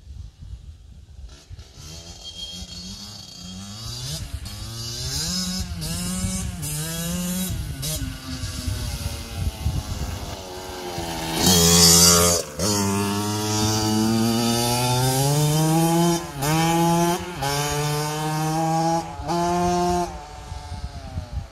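KTM 65 SX two-stroke motocross bike revving up through the gears, its pitch climbing in each gear and dropping at each shift. It grows louder as it comes closer, is loudest about halfway through as it passes, then carries on shifting up as it pulls away, stopping just before the end.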